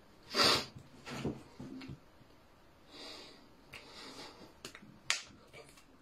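A loud burst of breath about half a second in, then softer breaths and lip puffs, and a few sharp hand slaps, the loudest about five seconds in.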